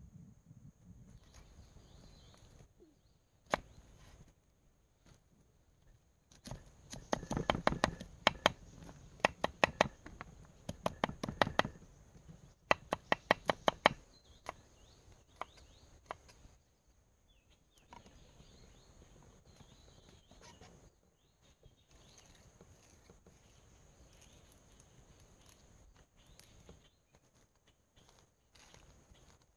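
Knife chopping on a wooden cutting board: fast runs of knocks, about four a second, through the middle, then occasional single cuts. A steady high insect drone runs underneath.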